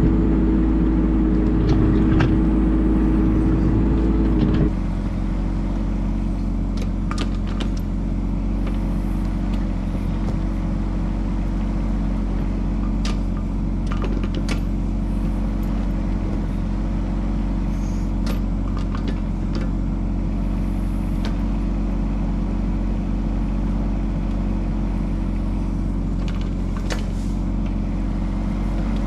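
Bobcat E10 mini excavator's diesel engine running steadily as the machine digs. About five seconds in the engine becomes quieter and more distant, with scattered sharp clicks and clanks from the machine working.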